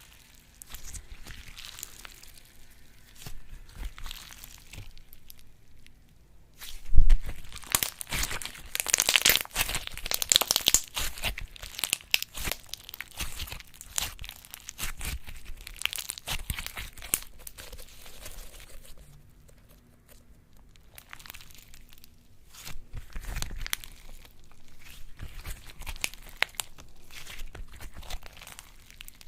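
Slime being worked by hand, making a dense run of quick crackles and clicks; quieter at first, it grows loud about seven seconds in, dies down near the twentieth second, and picks up again after.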